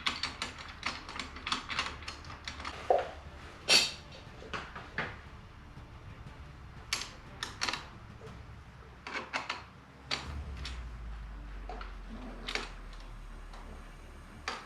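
Irregular clicks and knocks of small hardware being handled and pressed into place, with a low steady hum coming in about two thirds of the way through.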